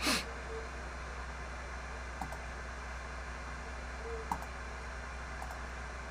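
Steady background hiss and low hum from the stream's audio, with a short loud noisy burst at the start and a few faint clicks later on.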